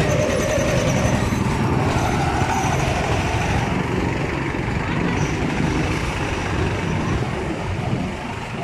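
Busy city street traffic: motor vehicles running close by, a steady, unbroken din of engines and road noise.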